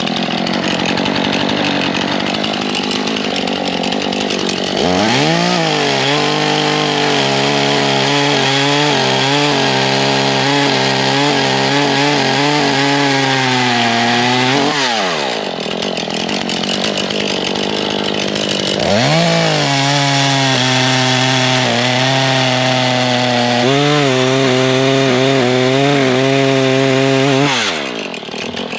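Small Husqvarna chainsaw cutting through a log. The engine revs up about five seconds in and holds a steady high speed, drops off around the middle, then revs up again and holds before dropping near the end.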